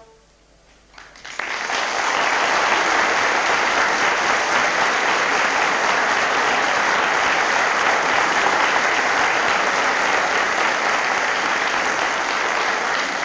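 Audience applauding, breaking out about a second in and holding steady and dense.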